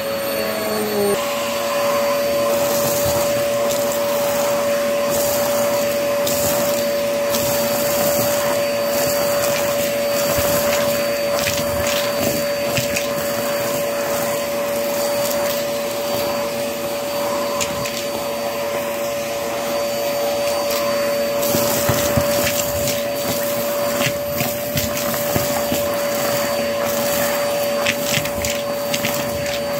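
Vacuum cleaner running with a steady whine and rush of suction, its pitch settling about a second in, as the hose nozzle sucks up scattered debris from a carpet, with many small clicks and rattles as bits go up the hose.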